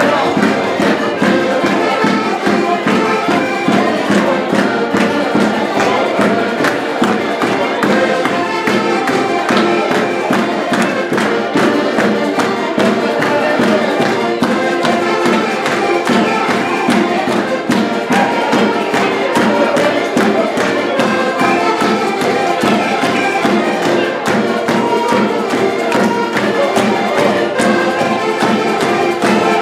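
Live traditional Portuguese folk music, led by button accordions, playing a lively tune with a steady beat, and people clapping along.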